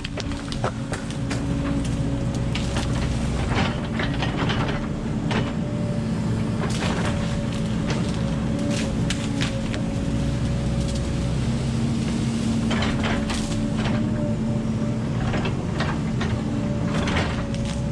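Volvo 140 tracked excavator's diesel engine running steadily, with repeated short clanks and knocks of the machine as it moves.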